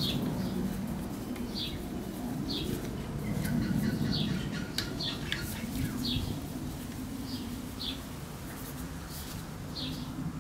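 A small bird chirps in short calls every second or so, over the clicks and clinks of a socket wrench turning the clutch spring bolts of a motorcycle engine, with a steady low hum underneath.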